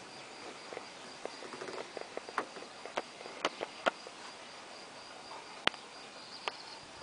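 Outdoor ambience: a steady, high, evenly pulsing insect chirp, with scattered sharp clicks and ticks, the loudest one a little over two-thirds of the way in.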